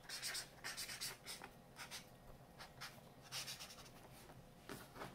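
Gold paint marker nib scratching across black sketchbook paper while lettering a tag: soft, faint scratches, one with each stroke, a few a second at an uneven pace.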